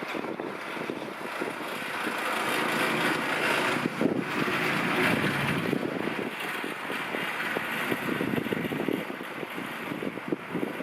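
Wind buffeting the microphone: a steady rushing noise that swells around the middle and then eases off.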